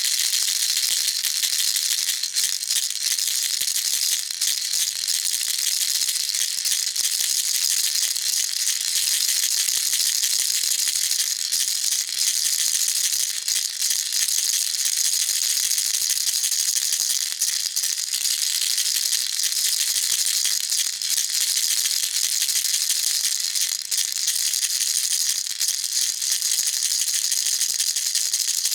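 Baby rattle shaken continuously: a dense, steady, high clatter of small beads clicking, without pauses.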